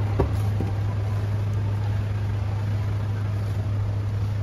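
Two soft thuds near the start, as a large oiled ball of dough is turned and patted by hand on a stainless steel counter, over a steady low machine hum.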